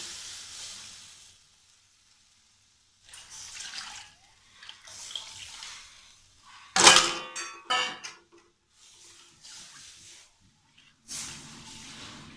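Besan-and-curd batter poured from a steel bowl into hot spiced oil in a steel kadhai: the sizzle dies away, then liquid splashes and pours. Sharp clanks of steel utensils against the pan come about seven seconds in, the loudest sounds here, and a ladle starts stirring the batter near the end.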